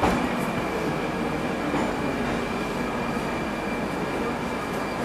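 Metrowagonmash 81-740/741 "Rusich" metro train running, heard from inside the car: a steady rumble of wheels and running gear with a thin, steady high whine over it.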